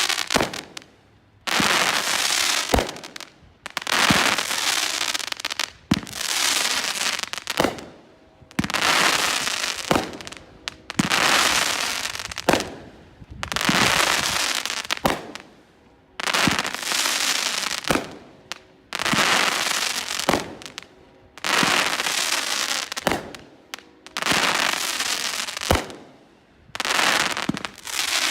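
Brothers Pyrotechnics 'Gunslinger' firework going off shot after shot, about one every one and a half seconds. Each shot is a sharp bang followed by about a second of loud crackling.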